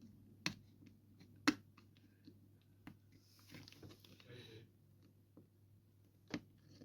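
Faint clicks and taps of the small plastic and internal parts of a Garmin GPSmap 60CSx handheld GPS being handled and pressed together while refitting an awkward clip-in part, with a sharper click about a second and a half in and a soft rustle of handling in the middle.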